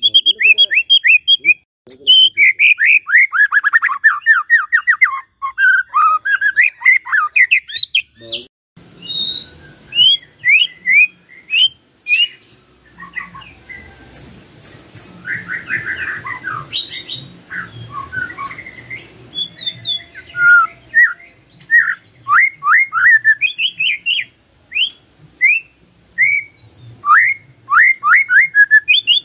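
White-rumped shama singing: fast volleys of short, sharply down-slurred whistled notes, repeated again and again, with a brief break about nine seconds in.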